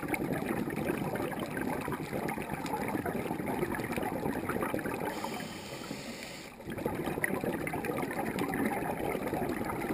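Underwater bubbling and gurgling, easing off for about a second and a half past the middle and then coming back.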